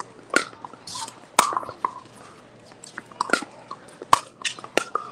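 Pickleball paddles striking the ball in a rally: several sharp pops at irregular intervals, about half a second to a second apart.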